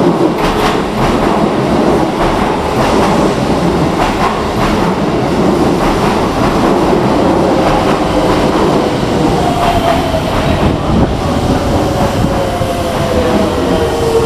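Electric commuter train pulling into a station platform, with wheels clacking over rail joints. In the last few seconds a whine falls in pitch as the train slows.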